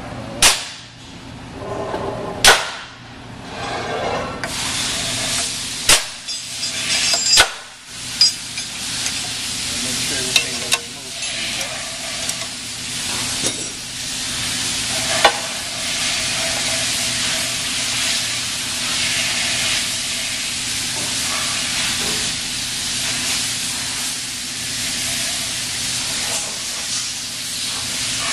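A few sharp metal clinks and knocks in the first several seconds, then a steady hiss with a faint low hum under it.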